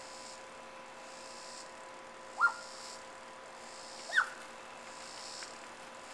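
Two short, high yelps, each dropping in pitch, about two seconds apart, over steady chirping of insects.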